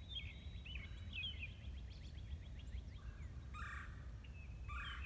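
Backyard birdsong: small birds chirp and trill throughout. A red-bellied woodpecker gives two short calls in the second half, about a second apart.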